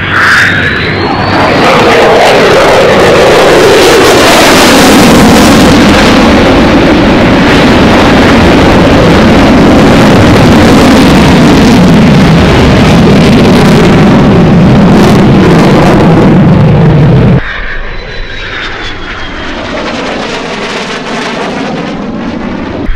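F-22 Raptor's twin jet engines making loud, dense jet noise on a low pass, the pitch sweeping steadily downward as it goes by. About seventeen seconds in the sound drops suddenly to a quieter jet rumble with a thin high whine.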